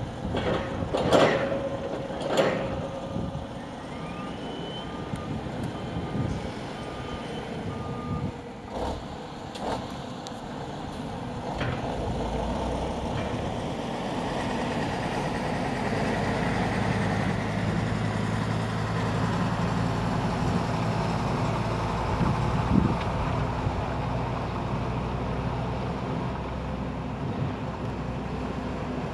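A JCB 531-70 telehandler tips silage from its bucket into a Tatra 815 truck body with two loud thumps, then its reversing alarm beeps for a few seconds. From about twelve seconds in, the loaded Tatra 815's air-cooled diesel runs steadily and grows louder as the truck pulls away.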